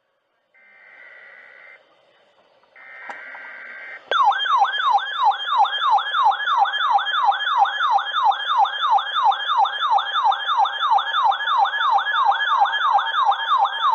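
Two short bursts of buzzing digital data tones, the SAME header of a new weather alert, then a weather radio receiver's alert siren: a loud, fast, repeating pitch sweep, about two and a half cycles a second, starting about four seconds in.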